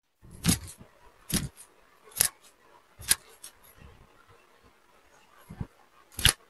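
A series of sharp clicks: four at an even pace, a little under a second apart, then a weaker one and a loud one near the end.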